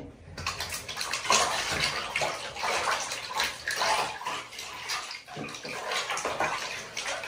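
Water swished and splashed by hand in a plastic basin as shampoo is mixed into it, an uneven sloshing that swells and dips.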